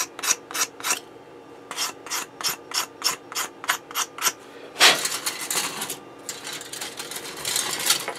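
Sanding sponge rubbed back and forth over a plastic model-kit hull part in quick even strokes, about three a second, with a short pause near one second in. About five seconds in there is one louder scrape, followed by steadier rubbing that stops just before the end.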